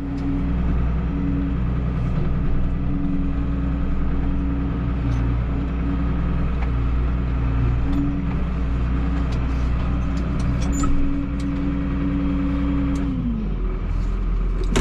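Farm machine's diesel engine running steadily at high speed, then throttled back about thirteen seconds in, its pitch dropping as it slows.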